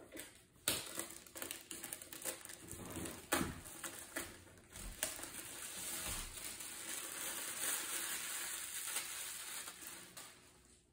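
Plastic shrink-wrap being peeled off a cardboard box and crumpled, crinkling and crackling. It starts as scattered crackles, becomes a dense, steady crinkling about halfway through, and stops near the end.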